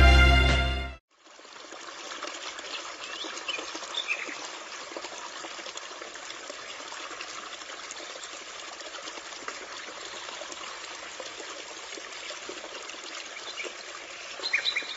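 Music cuts off abruptly about a second in. A steady trickling, running-water-like noise follows, with a few faint high chirps about three seconds in and again near the end.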